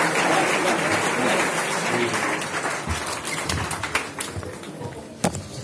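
Audience applause that thins and fades away, ending in a few scattered separate claps.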